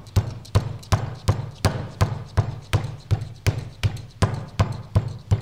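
Cross-peen hand hammer striking a slab of plasticine on an anvil, a steady rhythm of short knocks about three a second. The peen is spreading the plasticine wider.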